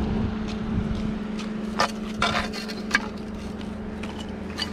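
A steady low mechanical hum, with a few short knocks and scrapes, the sharpest about three seconds in, as a rusty metal pipe pulled up by a fishing magnet is handled on a concrete bridge deck.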